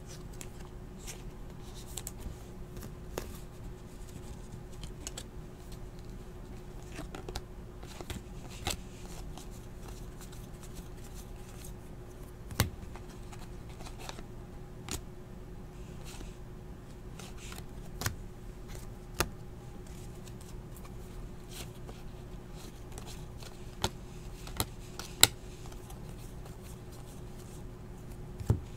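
Basketball trading cards and packs being handled and flipped through, with soft sliding and rustling and scattered sharp clicks and taps, over a steady low hum.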